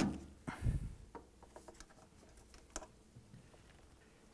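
Handling noises as the air hose is worked off a washer's pressure switch: a sharp click, a dull knock about two-thirds of a second in, then scattered faint ticks.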